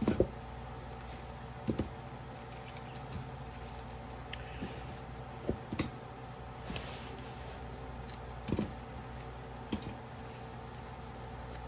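Irregular metallic clicks and clinks of grooming shears and clipper blades being handled and sorted, over a steady hum.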